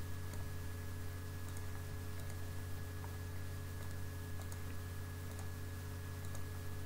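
Faint computer mouse clicks and keystrokes, scattered and irregular, over a steady low electrical hum.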